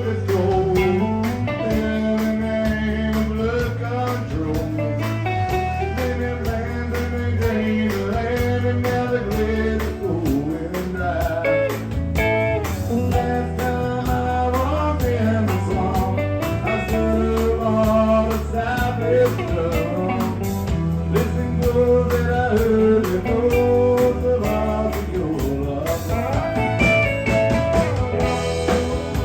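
Country band playing, with a guitar lead of bending notes over steady bass and drums.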